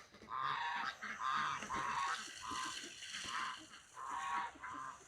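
Ducks quacking: a run of about eight short, nasal calls spread through the few seconds.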